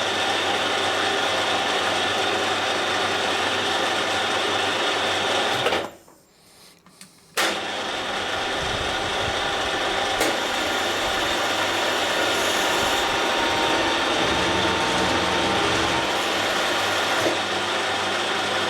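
A machine tool running steadily with a clattering, gear-like mechanical noise. It cuts out suddenly about six seconds in and comes back just as suddenly a second and a half later.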